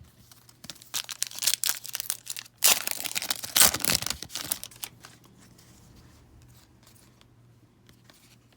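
A hockey card pack's foil wrapper being torn open and crinkled: a dense rustling, crackling run of about four seconds, loudest in its second half, then only faint card handling.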